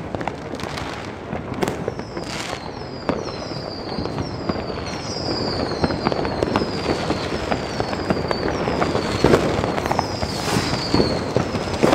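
New Year's Eve fireworks going off all around: a dense crackle of firecrackers and sharp bangs. From about three seconds in until near the end, a run of short, high whistles falls in pitch again and again.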